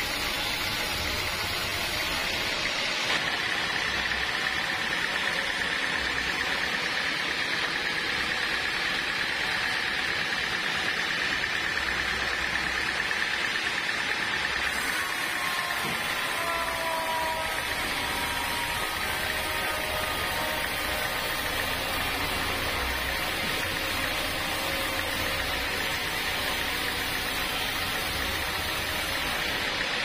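Band sawmill running, its blade cutting lengthwise through a thick block of dry, hard wood: a steady machine noise, with a high whine setting in about three seconds in.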